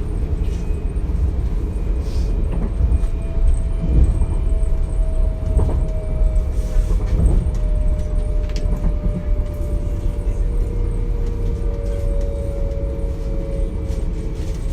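Interior running noise of a DB Class 425 electric multiple unit: a low rumble with a steady squealing tone that slowly falls in pitch, and a few short knocks along the way.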